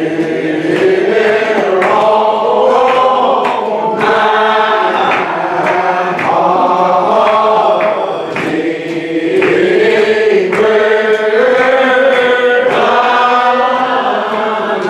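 Church congregation singing a hymn unaccompanied, men's and women's voices together in slow, long-held notes that shift in pitch only every second or so.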